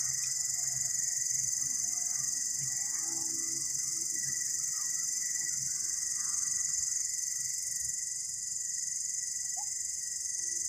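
Long-horned grasshopper (katydid) calling with a continuous high-pitched buzz, with a fainter steady whine lower down.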